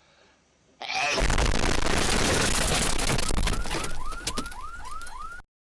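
A loud, harsh explosion-like noise bursts in about a second in, with a deep rumble underneath and a quick run of short rising chirps near the end, then cuts off suddenly into silence.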